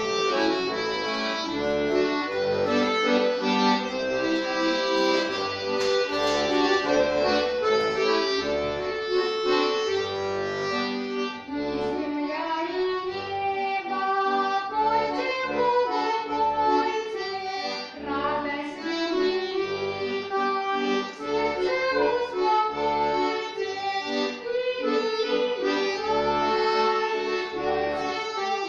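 A girl singing a Russian folk song with accordion accompaniment: her voice carries the melody in held, gliding notes over sustained accordion chords, with bass notes pulsing in a steady rhythm.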